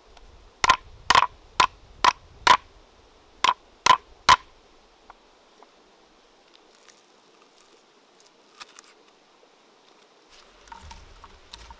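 Cleaver blade smacking whole lemongrass stalks flat against a wooden chopping block to bruise them: eight sharp knocks, five in quick succession, then three more after a short pause. Faint taps and rustles follow as the crushed stalks are gathered up on the board.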